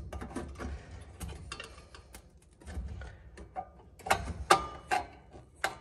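Small metal hand tool clicking and scraping against a tight screw on a gas fireplace's pilot assembly, its head hard to grip. Irregular clicks, with a cluster of louder knocks about four seconds in.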